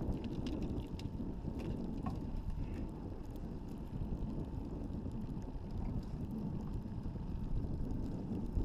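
A boat's motor running steadily, mixed with wind noise on the microphone, with a few faint clicks in the first three seconds.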